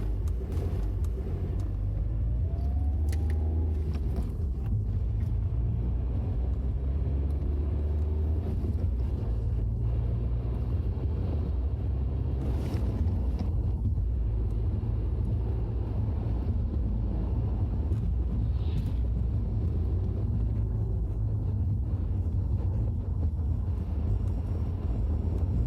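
Cabin sound of a Peugeot 308 with a 1.6 HDi diesel cruising steadily in fifth gear at about 1,800 rpm: a continuous low rumble of engine and road noise.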